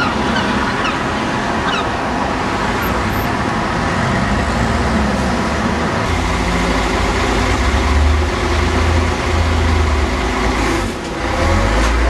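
Road traffic noise with a heavy vehicle's engine running; its low rumble grows stronger about four seconds in.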